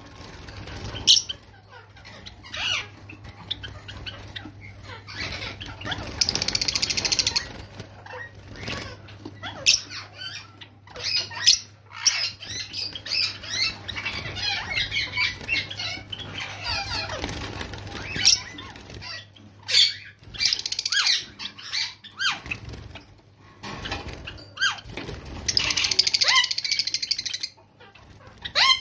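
A flock of white and silver Java sparrows fluttering their wings as they fly and land about a wire cage, with many short chirps and clicking calls. Twice there is a longer buzzy stretch lasting a second or two.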